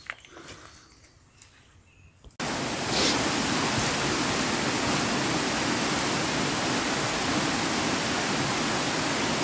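A few faint clicks and knocks, then, after an abrupt cut about two seconds in, a steady loud rush of falling water from a waterfall.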